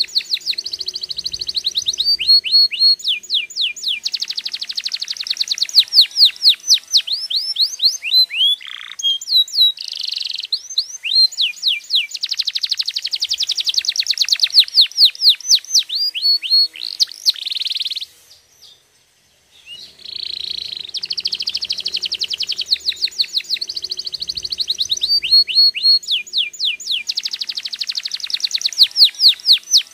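Domestic canary singing: long rolling trills of fast, repeated down-slurred notes, the runs changing speed and pitch from phrase to phrase. The song breaks off for about a second and a half a little past the middle, then starts again.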